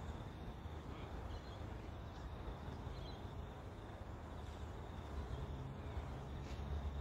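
Quiet outdoor ambience: faint bird chirps over a steady low rumble that grows a little louder near the end.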